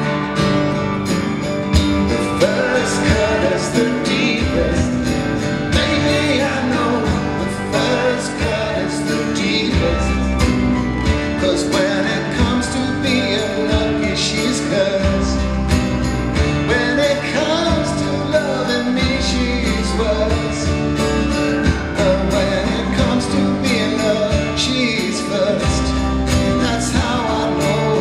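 Live acoustic guitar strumming with a man singing, a second guitar playing along.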